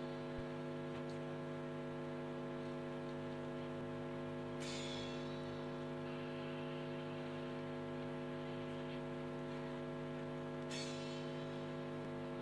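Steady electrical mains hum with many overtones, filling the whole recording, with two brief hissy swells about 5 and 11 seconds in.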